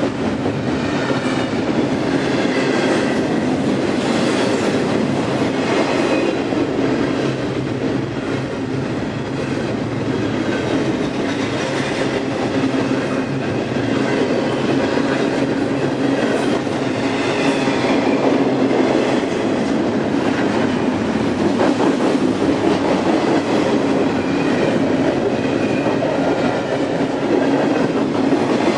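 Double-stack intermodal freight cars rolling past at speed: a steady rumble of steel wheels on rail, with clickety-clack as the wheels cross rail joints.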